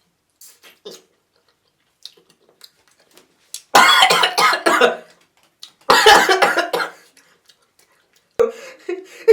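A person coughing in two harsh fits, each about a second long, about two seconds apart.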